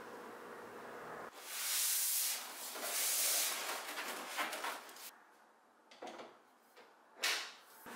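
Plastic and foam packaging rubbing and sliding as a widescreen monitor is unpacked and its stand fitted: two long rubbing swishes, then quieter handling with a few light clicks and a sharper knock near the end.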